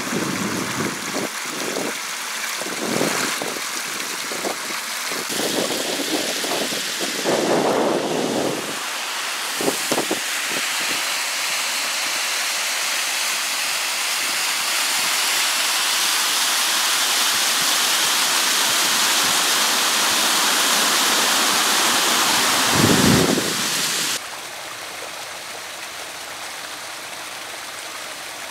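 Stream water rushing over a low weir and out through a culvert, a loud steady rush, with a few low thumps in the first ten seconds. About four seconds before the end it cuts suddenly to the quieter, steady rush of a small stream cascading over rocks.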